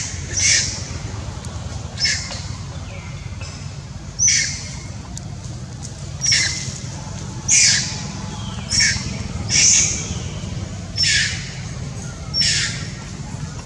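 Baby long-tailed macaque screaming in short, shrill cries, about nine of them spaced one to two seconds apart, while held down by an adult macaque.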